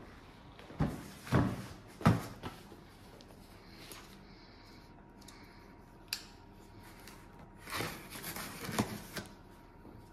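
A cardboard shipping box knocking and thudding three times as it is carried and set down on a table, then a single click, and near the end its packing tape and cardboard being scraped and rustled as the box is opened.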